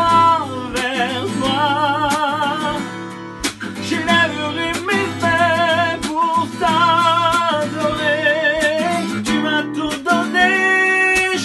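A man singing held notes with vibrato over a strummed acoustic guitar.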